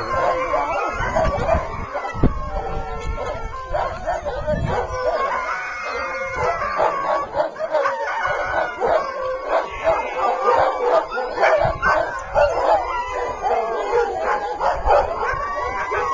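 A chorus of sled dogs barking, yipping and howling together, many voices overlapping without a break.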